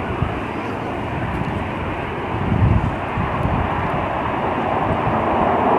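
Airliner's engines on a crosswind landing approach, a steady rushing noise that grows slowly louder, with low gusts of wind buffeting the microphone about two and a half seconds in.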